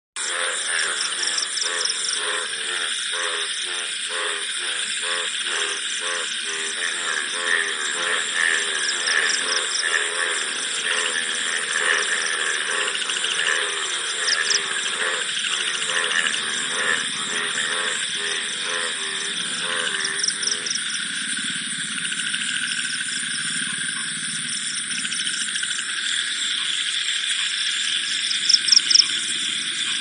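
Night chorus of crickets and frogs: a steady high insect trill throughout, with frogs calling in rapid pulses that stop abruptly about two-thirds of the way through. Short louder chirp bursts recur every few seconds, the loudest near the end.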